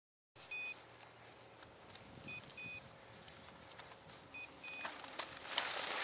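A dog's electronic beeper collar sounding a double beep, a short beep then a longer one, repeating about every two seconds. From about five seconds in, crackling footsteps through dry grass and snow grow louder and become the loudest sound.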